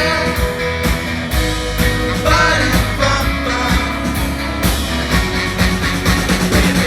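Live pop-rock band playing through a loud PA: drums keeping a steady beat under guitars and bass in an instrumental passage, with some singing over it.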